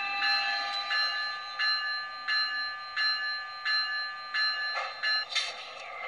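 Recorded locomotive bell from the sound system of an HO-scale Atlas ALP-45DP model locomotive, ringing steadily at a little under two strikes a second. About five seconds in the bell stops and a short burst of noise follows.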